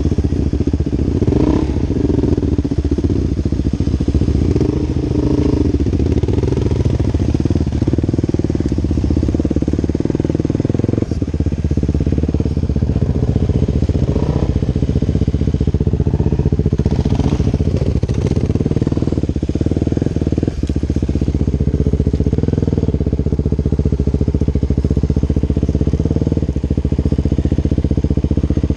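2011 Husqvarna TE 449 dirt bike's single-cylinder engine running steadily as the bike is ridden along at an even pace, with a couple of brief knocks.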